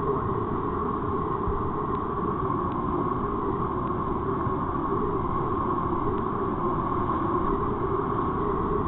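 Whitewater rapids rushing steadily around a kayak at water level, a continuous even wash of turbulent creek water.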